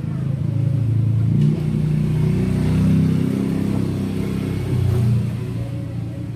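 Honda XRM 110's single-cylinder four-stroke engine running and being revved up and back down a few times, test-run with its newly fitted stator.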